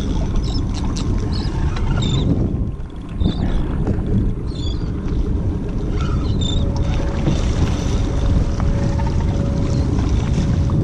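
Open-water ambience aboard a small fishing boat: a steady low rumble, dipping briefly about three seconds in, with a few short high squeaks and, from about six seconds in, a faint steady hum.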